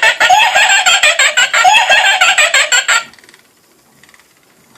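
Halloween rocking witch decoration's small speaker playing a rapid cackling laugh, thin with no low end, that stops about three seconds in.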